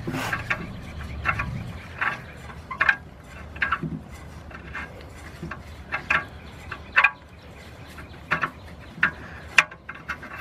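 Upstream oxygen sensor being unscrewed by hand from the exhaust, its threads and the gloved fingers on it making short, irregular squeaks and scrapes, about a dozen in all.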